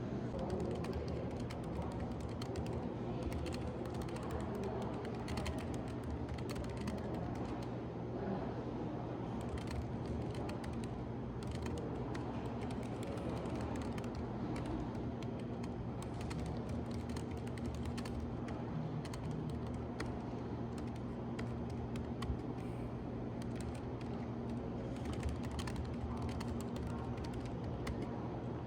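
Typing on a computer keyboard: a steady run of quick, irregular key clicks over a low steady hum.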